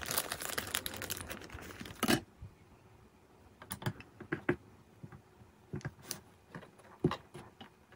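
Hands handling small plastic model-kit parts close to the microphone: about two seconds of rustling that ends in a sharp click, then scattered light clicks and taps as the small sign pole is pressed into place.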